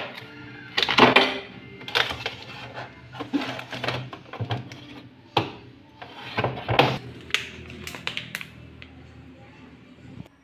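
Plastic packaging of frozen food crinkling and rustling in irregular bursts as packs are picked up and shifted around in a freezer, with a few sharp clicks.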